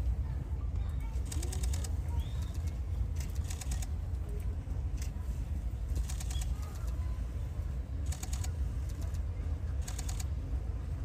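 Outdoor ambience: a steady low rumble with a short, high hissing flutter about every one and a half to two seconds and a few faint bird chirps.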